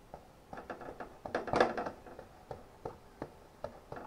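Kitchen handling noise: a string of light knocks and clicks of cookware and utensils being moved about, the loudest about a second and a half in.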